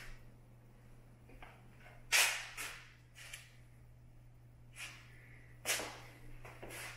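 Faint footsteps of a person walking across the floor: a few short scuffs, roughly one a second, over a steady low hum.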